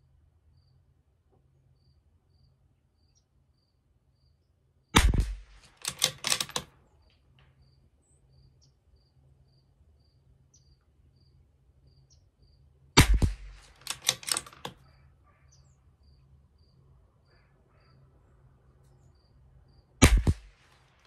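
Bergara B14R .22 LR bolt-action rifle firing three single shots several seconds apart. Each shot is followed within a second by a quick series of clicks as the bolt is worked to eject the case and chamber the next round.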